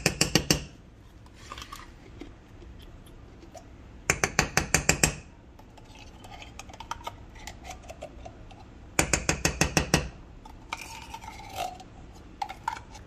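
A metal spoon scraping tomato paste out of a small tin can: three bursts of rapid scraping clicks, each about a second long, near the start, about four seconds in and about nine seconds in.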